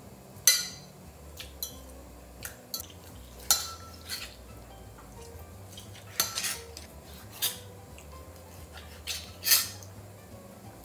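Chef's knife chopping on a wooden cutting board: about ten separate sharp knocks and clinks, unevenly spaced.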